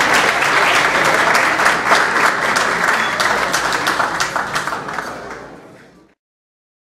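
Audience applauding, a dense patter of many hands clapping. It fades over the last second and then cuts off abruptly.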